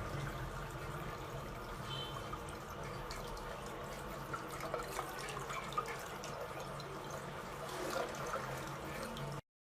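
Water trickling with scattered small drips or clicks, cutting off abruptly near the end.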